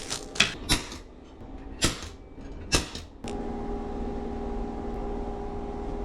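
A few sharp clicks and knocks as small bagged hardware (nuts, washers and screws) is handled, then a steady hum that starts about three seconds in.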